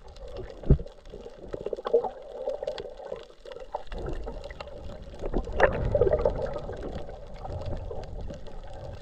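Muffled underwater sound heard through a submerged camera housing: water churning and crackling, with scattered knocks. A sharp thump comes about a second in, and a louder burst about halfway through.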